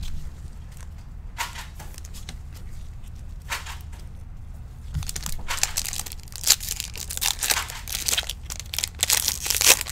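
Foil trading-card pack wrapper crinkling and tearing as it is opened: two brief rustles, then dense crinkling from about halfway through.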